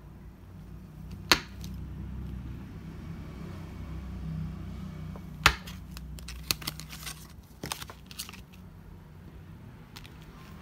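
Enamel pins and paper backing cards handled on a wooden tabletop: two sharp clicks a few seconds apart, then a quick run of small taps and paper rustles, over a low steady hum.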